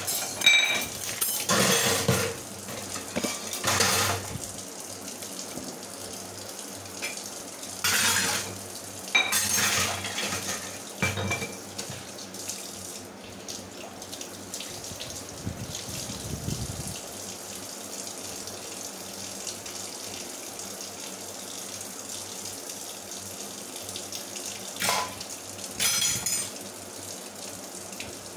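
Kitchen tap running steadily into a stainless steel sink. Steel pots, plates and utensils clatter against each other in bursts during the first few seconds, again about eight to twelve seconds in, and near the end.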